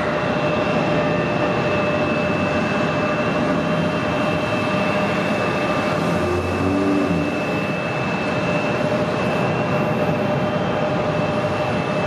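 Pratt & Whitney JT9D-7R4D turbofans of a Boeing 767 running, heard from across the airfield as a steady rumble with a constant high whine on top.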